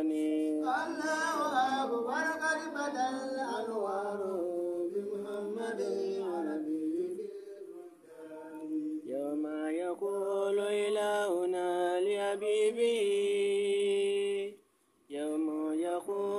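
A voice chanting a melodic devotional chant in long, held, gliding notes. It dips briefly about halfway through and cuts out for a moment near the end.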